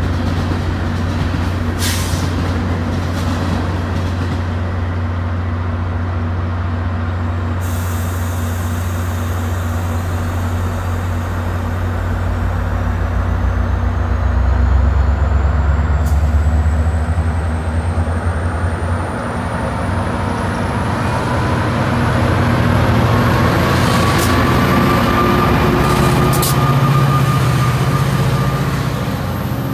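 Metra diesel locomotive running with a steady low engine hum at the platform, with a few short hisses of air. In the second half the sound grows louder and a whine rises in pitch as the train pulls away.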